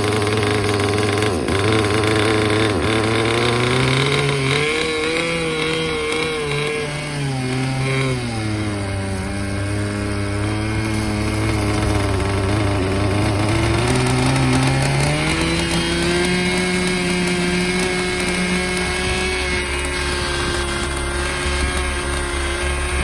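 Small two-stroke nitro glow engine of a 1987 Kyosho Nitro Brute RC buggy running, its revs rising and falling for the first half. About two-thirds in it climbs to a steady, higher speed.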